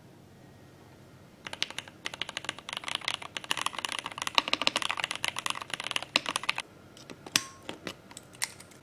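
Typing on a Darmoshark K8 gasket-mount mechanical keyboard: rapid keystrokes start about a second and a half in and run for about five seconds, followed by a few separate key presses.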